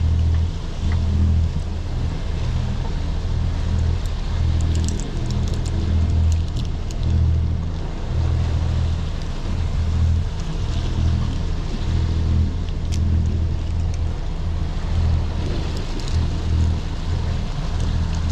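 Boat underway at sea: a steady low rumble that swells and eases about once a second, with wind and water noise and a few light clicks about four to seven seconds in.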